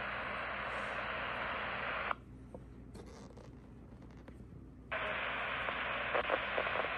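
ICOM IC-R30 scanner's speaker giving out steady radio static with no voice, cutting off sharply about two seconds in and coming back about five seconds in as the receiver's squelch closes and reopens on a channel.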